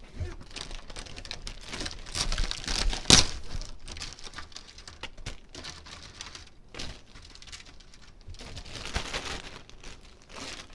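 Plastic crinkling and rustling as a zip-top bag is opened and Oreo cookies are taken from their plastic package and put into it, with one sharp crackle about three seconds in.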